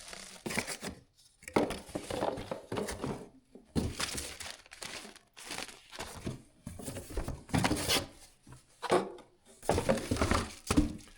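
Plastic packaging crinkling and tearing in irregular bursts as vacuum parts are unwrapped and lifted out of their box.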